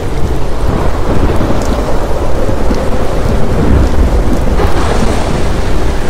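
Heavy rain pouring with a low rumble of thunder that swells to its strongest about four seconds in.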